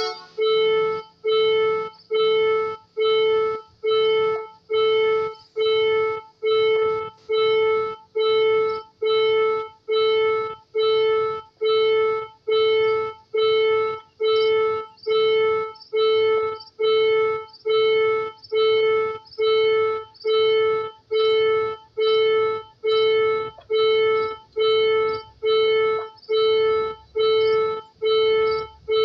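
Railway level-crossing warning bell striking one ringing tone a little over once a second, each stroke dying away before the next. It is the signal that a train is approaching and the crossing is closed.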